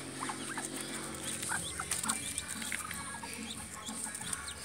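Ducklings peeping: many short, high peeps, overlapping and irregular.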